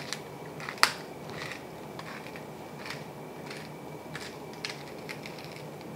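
Wooden pepper mill being twisted by hand, grinding peppercorns with faint, irregular crunching clicks, and one sharper click about a second in.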